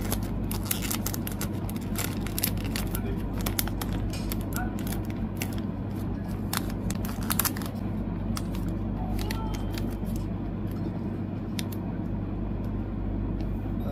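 Thin plastic photocard sleeves crinkling and crackling as cards are slid in and handled, with many small irregular crackles over a steady low hum.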